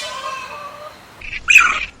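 Poultry calling: a short pitched call at the start, then a loud harsh squawk about a second and a half in.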